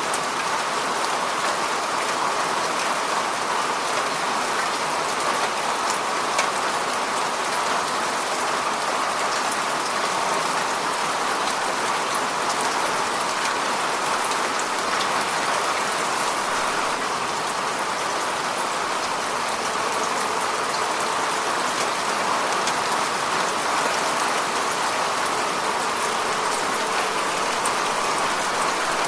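Steady rain falling on a surface, an even hiss with scattered drops ticking through it.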